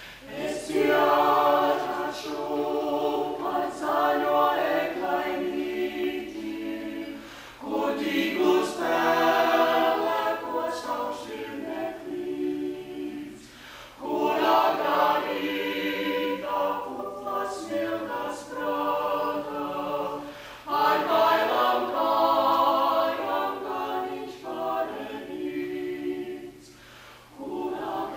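Small mixed ensemble of men's and women's voices singing a cappella in harmony, in phrases of about six seconds with short breaks between them.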